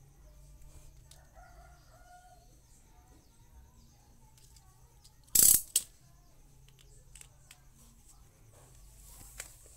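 A sudden loud, hissy burst of handling noise about five seconds in, with a smaller one just after, as the phone and its SIM tray are handled close to the microphone. Early on, a rooster crows faintly in the distance.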